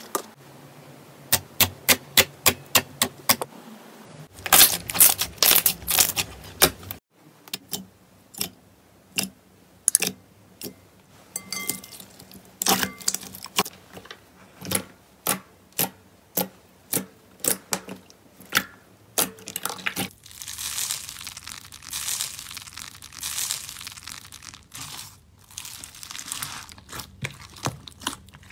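Hands squeezing and poking slime: sharp sticky pops and clicks, a quick run of them at first, then about one a second. In the last third it turns to a crinkly crunching as slime packed with foam beads is pressed.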